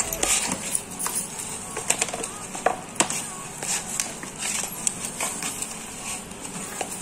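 A hand mixing chopped leaves and onion with dry gram flour and spices in a steel bowl, no water added yet: irregular rustling and crunching with scattered sharp clicks.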